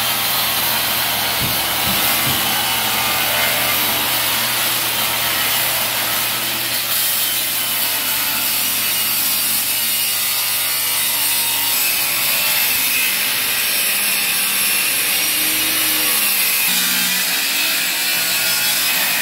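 Circular saw running steadily under load, ripping a long cut through the wooden filler along the edge of a painted cabinet to trim it to a scribe line.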